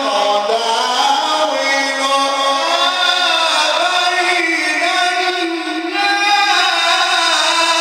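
A man reciting the Quran in the melodic Egyptian tajweed style, using the maqamat: long drawn-out, ornamented phrases whose pitch glides and wavers, with no break into plain speech.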